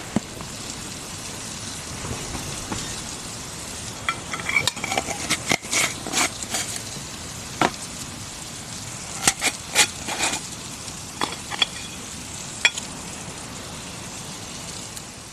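Food sizzling in a pan, with a utensil stirring and clinking against the pan in a series of sharp knocks through the middle stretch.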